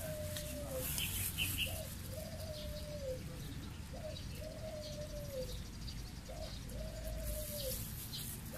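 A dove cooing over and over in the same phrase: a short note, then a longer, even note that drops at its end, the pair repeating about every two seconds.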